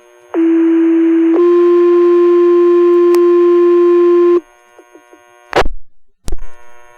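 Two-tone sequential paging tones over the fire dispatch radio: a low tone held about a second, then a slightly higher tone held about three seconds, the alert that sets off the volunteer firefighters' pagers. Two short clicks of radio noise follow near the end as the channel is keyed.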